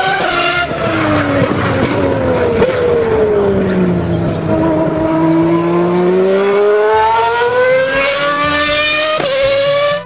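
Formula 1 racing car engine sound, one continuous high engine note that slides down in pitch over the first few seconds and then climbs steadily again.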